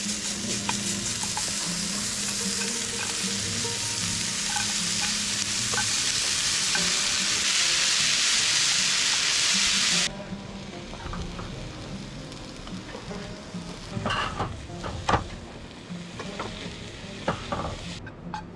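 Food sizzling as it fries, a loud steady hiss that cuts off abruptly about ten seconds in; after that, fainter sizzling with a few sharp clicks.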